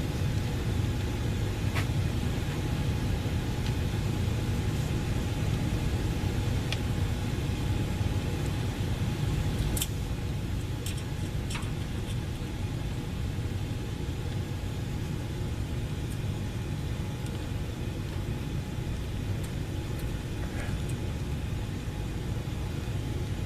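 Steady low rumble with a faint steady hum, broken by a few light clicks or taps.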